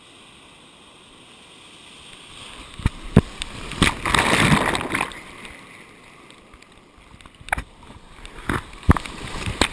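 Ocean surf splashing around a camera at water level. A wave's whitewater washes over it about four seconds in, a loud rush lasting about a second, with sharp slaps of water on the camera before and after.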